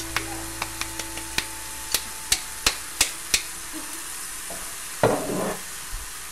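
Breaded chicken sizzling in a frying pan while tomato sauce is shaken out of an upturned glass jar over it. About ten sharp taps come over the first three and a half seconds, growing louder, as the jar is knocked to free the sauce. A single louder, short wet thud follows about five seconds in.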